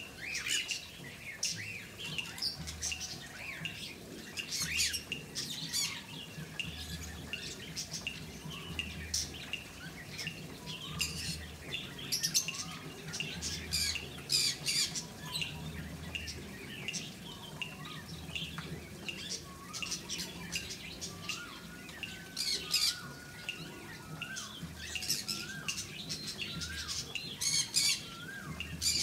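Several birds chirping and squawking in quick, overlapping short calls, with short rising whistled notes repeating in the second half.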